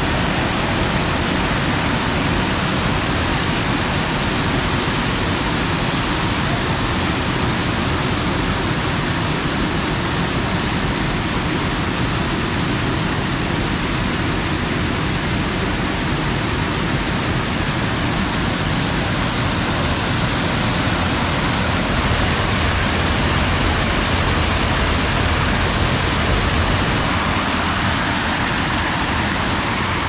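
Water pouring over a low concrete weir and churning down into a rocky stream: a loud, steady rush.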